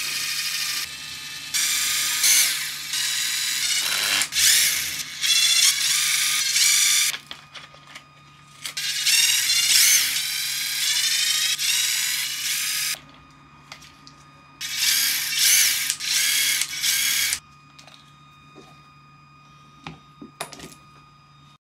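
Cordless drill-driver whining in several bursts of a few seconds each, its pitch rising and falling, as it backs screws out of an RC crawler's chassis.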